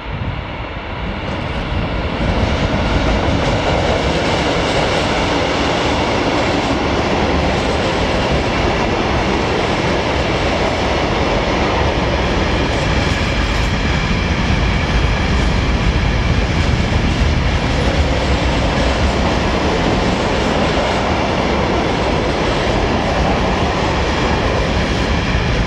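Empty freight train of self-discharging hopper wagons rolling past at speed behind a Class 185 electric locomotive: a steady loud rumble and rattle of wheels on the rails, swelling about two seconds in as the train reaches the spot.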